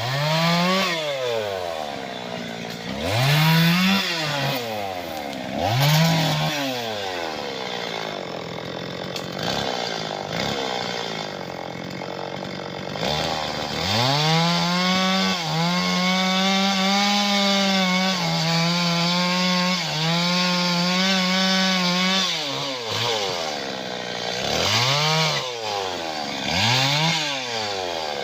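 Two-stroke chainsaw revved in three short bursts, then held at high revs for about eight seconds while cutting acacia wood, then revved twice more near the end.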